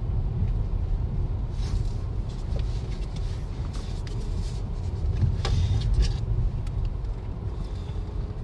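Low steady rumble of a car driving slowly on a dirt road, heard from inside the cabin, with scattered light rattles and crackles, the heaviest about five and a half seconds in.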